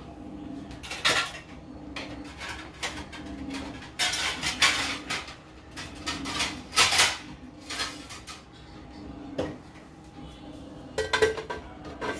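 Metal kitchenware clattering: several sharp metallic clinks and clanks, the last quick cluster near the end as a steel plate is handled onto the rim of an aluminium pressure cooker.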